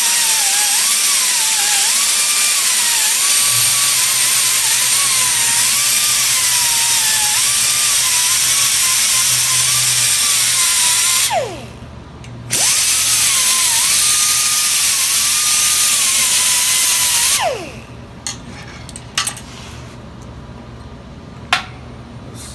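A high-speed grinder grinding cast aluminium at the blow gun's weld, its motor pitch wavering as it is loaded. It shuts off about halfway through and winds down, runs again for about five seconds, then shuts off and winds down once more, followed by a few light clicks and knocks.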